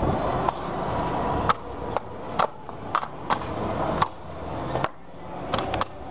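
Blitz chess: chess pieces clacked down on the board and the chess clock's buttons slapped in quick turn, about a dozen sharp irregular clacks over a low room murmur.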